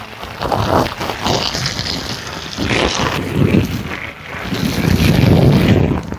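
Jet of water from a garden hose spraying onto a rain poncho, a rough rushing splatter that swells and fades as the spray moves over the coat, loudest about five seconds in.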